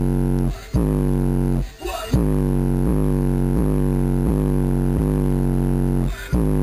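Bass-heavy music played loud through two 10-inch Rockford Fosgate Punch P1 subwoofers, heard inside the car. A deep bass line comes in with a new note about every three-quarters of a second and breaks off briefly three times.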